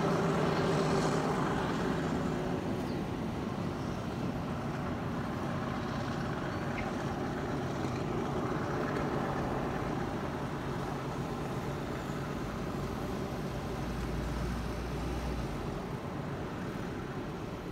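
Alsthom diesel-electric locomotive hauling a freight train away. Its engine drone is strongest at first and fades over the first few seconds, leaving a steady rumble that slowly grows quieter as the train recedes.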